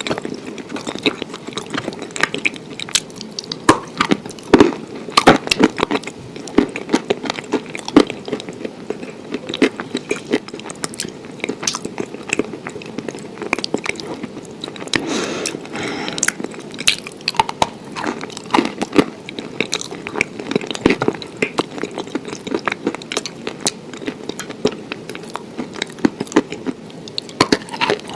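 A person chewing and biting food close to the microphone, a steady run of small, irregular crunches and mouth clicks.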